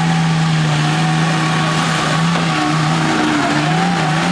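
Old off-road jeep's engine held at high revs under load as the vehicle pulls through deep mud: a steady drone that dips and rises slightly in pitch partway through.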